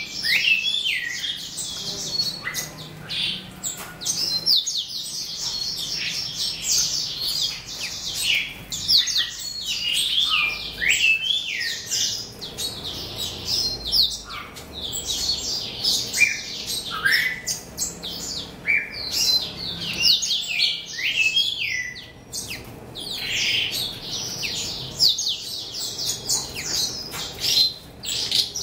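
Caged Chinese hwamei (laughing thrush) and Asian pied starlings singing: a near-continuous, varied stream of rapid repeated notes and short falling whistles, broken by a couple of brief pauses.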